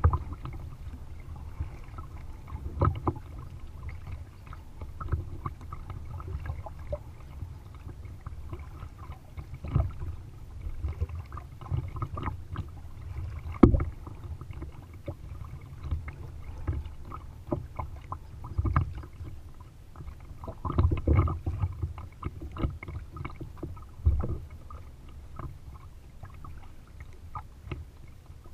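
Kayak paddle strokes: the blades of a double-bladed paddle dipping and splashing into lake water on alternate sides, heard close up from the kayak's bow over a steady low rumble. The strokes come irregularly, with a sharp, louder splash or knock about halfway through.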